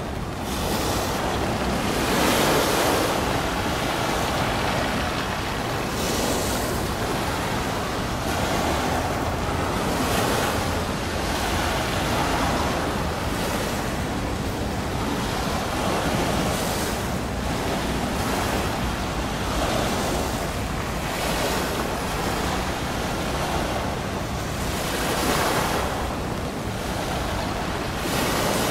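Waves washing, swelling and falling every second or two, with wind rumbling on the microphone.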